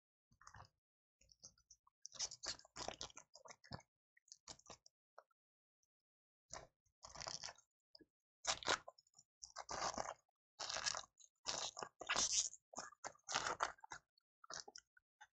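Foil wrapper of a trading-card hobby pack crinkling and tearing as it is opened by hand, in irregular crisp rustles. A short cluster comes about two seconds in, and a longer, busier stretch runs from about six and a half seconds until near the end.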